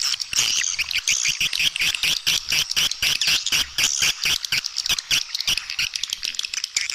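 Recorded swiftlet calls: a dense, continuous stream of rapid high twittering chirps, several a second. It is a swiftlet calling track, played in swiftlet farming to lure the birds to a nesting house.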